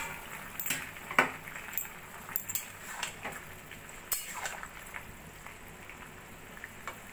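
Steel spatula clinking and scraping against a kadai while stirring cubes of raw papaya and potato, several irregular clicks, the loudest about a second in, over the curry simmering.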